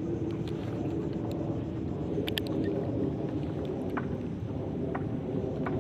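Steady low rumble of a boat engine running at the harbour, with a few faint, short high-pitched ticks over it.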